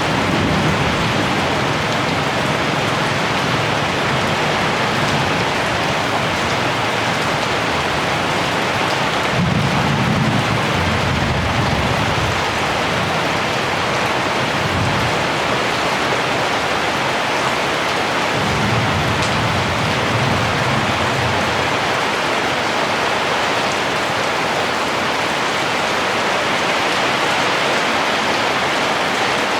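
Heavy rain falling steadily, a dense even hiss. Two low rumbles of distant thunder swell and fade, about ten seconds in and again near the twenty-second mark.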